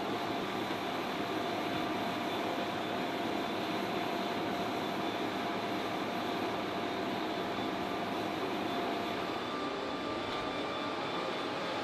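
Steady rush and whine of running machinery on an aircraft flight line during refuelling, with a few constant high tones held throughout.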